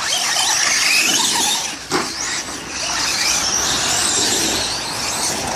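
Traxxas radio-controlled car driving, a high whine that rises and falls with the throttle, with a sharp knock about two seconds in.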